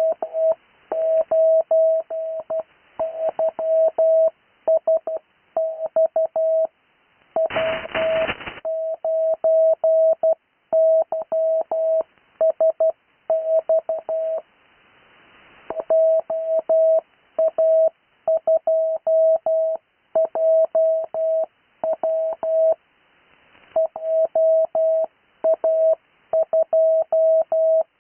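Morse code (CW) call signs sent as a single steady tone keyed on and off in dots and dashes, with hiss between characters, heard over a narrow radio voice channel. A short burst of noise cuts in about seven and a half seconds in, and there are longer pauses between groups around 15 and 23 seconds.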